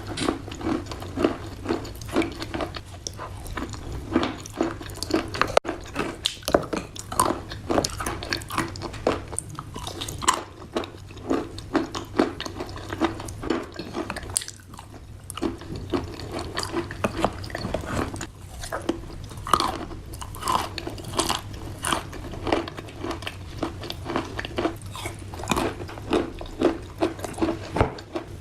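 Close-miked biting and chewing of wet chalk: a dense, irregular run of crisp crunches and crackles with a steady chewing rhythm underneath, easing off briefly about halfway through.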